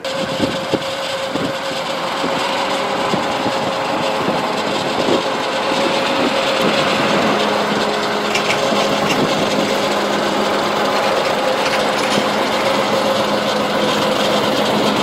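Personal hovercraft's engine and ducted fan running steadily: a dense rushing noise with a steady hum, and a lower steady tone that joins about halfway through.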